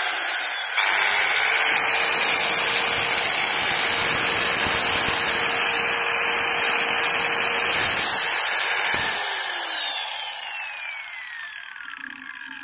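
Makita M0900B 100 mm angle grinder running with no load. It winds down briefly at the start, is switched on again about a second in and spins up, runs with a steady high whine for about eight seconds, then is switched off and spins down with a falling whine.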